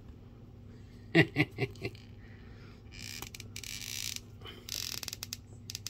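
Hands handling a plastic action figure: two spells of scraping and rustling, then several small sharp clicks near the end as the figure's joints are worked.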